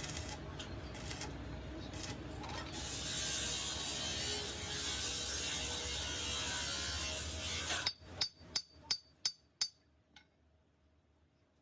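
Workshop machine running with a steady hiss and faint hum, cutting off suddenly about eight seconds in. Then about six quick, ringing metallic clicks, roughly three a second, and one more a moment later.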